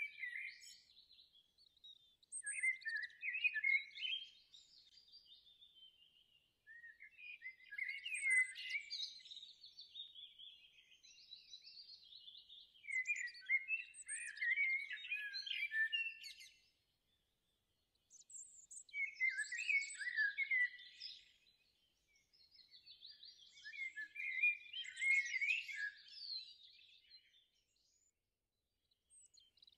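Songbird singing: phrases of rapid chirps and trills a few seconds long, repeated about six times with short pauses between.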